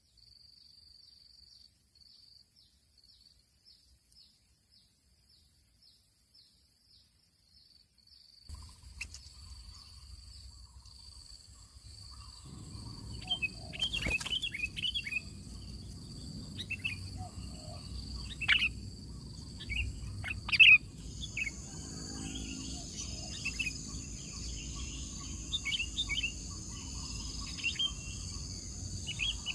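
Birds calling in short, sharp chirps, many in quick succession, with a couple of louder calls in the middle. For the first several seconds only a faint high chirp pulses steadily, before the bird calls and a rise in outdoor background noise come in.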